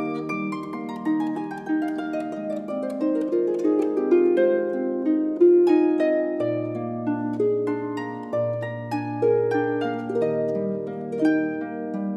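Solo concert harp being played: a steady stream of plucked notes ringing on over one another, with a low bass note coming in about halfway through.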